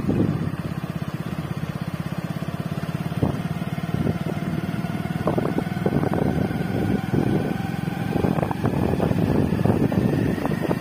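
Motorcycle engine running steadily as it rides along, its firing heard as a fast even pulse, with a faint whine that rises slowly in pitch over the second half.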